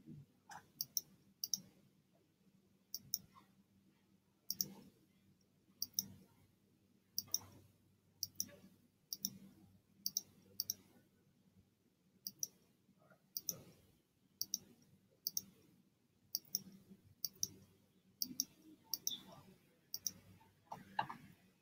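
Computer mouse button clicking at an uneven pace, roughly once a second, each click a quick press-and-release pair, placing the points of line segments one after another.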